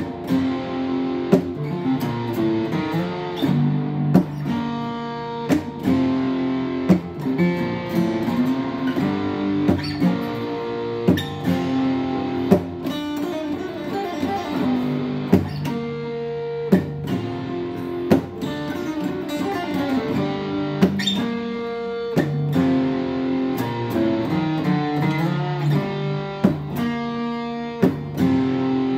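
Acoustic guitar played solo: chords picked and strummed in a steady rhythm, with a sharp accent about every second and a half.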